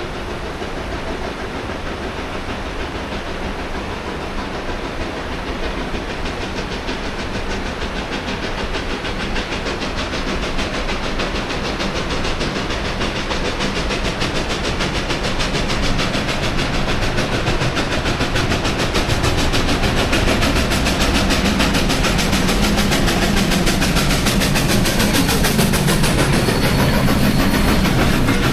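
Narrow-gauge steam locomotive No. 480, a K-36 Mikado, approaching at the head of a train with steam hissing, its sound growing steadily louder.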